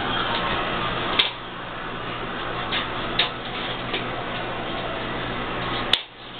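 Kittens playing in a dry bathtub: a steady scrabbling hiss of paws and claws on the tub's surface, with a few sharp clicks and knocks about a second in, around three seconds and near the end.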